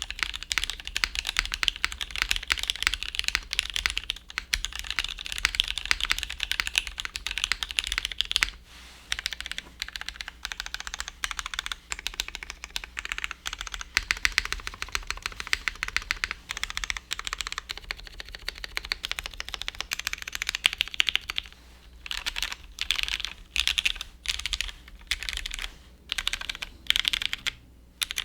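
Typing on a Percent Studio Skog Reboot mechanical keyboard with lubed vintage Cherry MX Black switches, an aluminum plate with no dampener between plate and PCB, and GMK keycaps: fast continuous clacking with a brief pause about eight seconds in, breaking into separate short bursts in the last several seconds. A steady low PC hum runs underneath.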